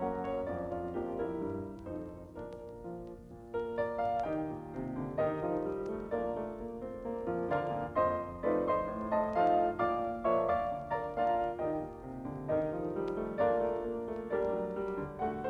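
Piano music accompanying a silent film: struck notes and chords that soften briefly about two seconds in, then pick up again with sharper, livelier playing.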